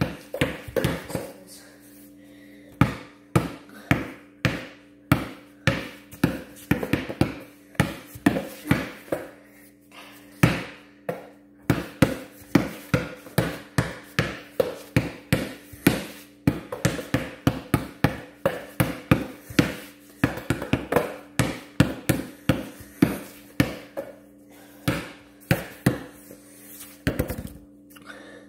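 Basketball dribbled hard and repeatedly, about two bounces a second with brief pauses, including a quick flurry of bounces near the end. A steady low hum runs underneath.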